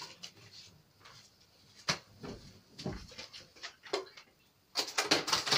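Cardboard toy box and its packaging being handled and pried at: scattered light knocks and taps, then a dense run of rapid crackling rustles near the end.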